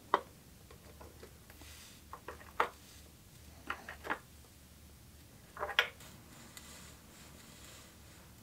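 Tools and bike parts being handled at a workbench: a handful of sharp clicks and knocks, about seven in four small groups, over quiet room tone.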